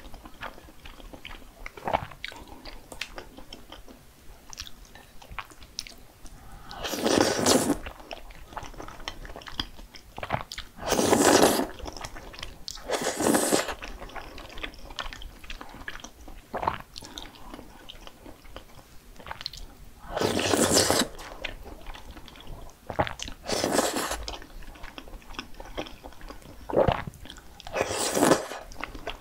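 A person eating close to the microphone: crunchy bites and chewing, with about six louder bursts of about a second each and soft clicks of chewing between them.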